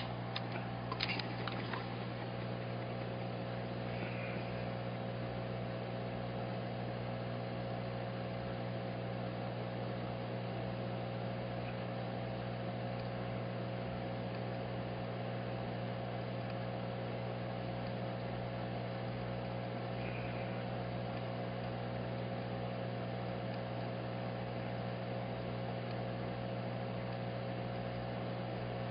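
Steady electrical hum with a hiss behind it, unchanging throughout; a few sharp clicks right at the start.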